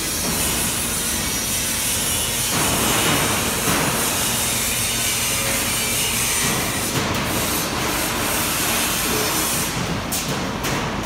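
Duct fabrication line machinery running: a loud, steady mechanical noise with strong hiss, changing in texture about two and a half seconds in and again near seven seconds.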